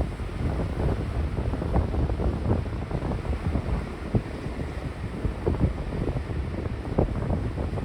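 Sea waves washing on the shore, with wind buffeting the microphone in irregular low bumps.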